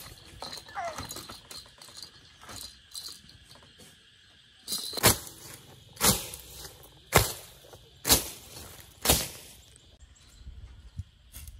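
A run of five sharp knocks, evenly spaced about a second apart, in the middle stretch, with a few fainter ticks before and after.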